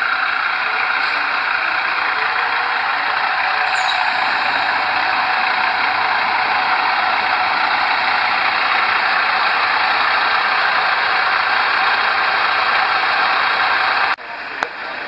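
Freightliner semi-truck running as it rolls slowly by at close range: a steady, loud engine noise that cuts off abruptly near the end.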